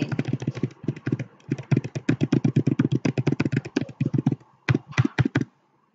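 Typing on a computer keyboard: a fast, dense run of keystrokes, then a few separate key taps about five seconds in.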